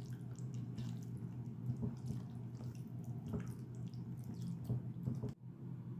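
Hand squishing and squelching raw chicken pieces through a thick yogurt-and-spice marinade in a glass bowl: irregular wet smacks over a low steady hum.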